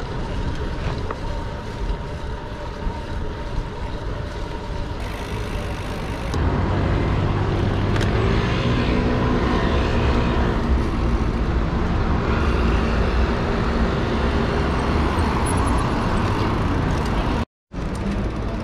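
Street traffic: motor vehicles driving past. It gets louder about six seconds in as a vehicle engine passes close by, its pitch shifting as it goes, and the sound cuts out for a moment near the end.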